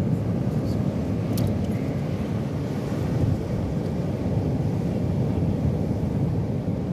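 Steady low rumble of wind buffeting the microphone, with a few faint clicks about a second and a half in.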